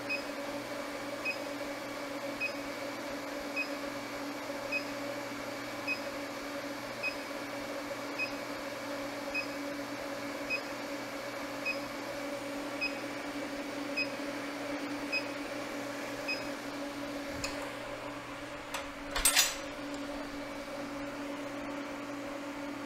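Induction forge running while it heats a steel plate: a steady electrical hum with a short high beep repeating about once a second. The beeping stops a few seconds before the end, followed by a click and then a brief clatter, the loudest sound here.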